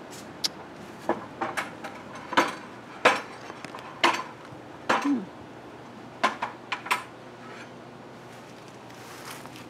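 A dozen or so irregular sharp clicks and clinks, bunched in the first seven seconds, with a short low falling sound about five seconds in.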